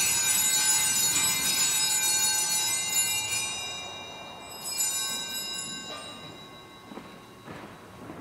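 Altar bells, a cluster of small bells, shaken and ringing as the host is elevated at the consecration. A second ring comes about five seconds in and fades away.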